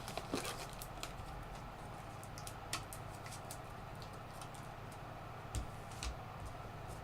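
Trading cards being handled and flipped through, giving a few short clicks and snaps over a steady low hum.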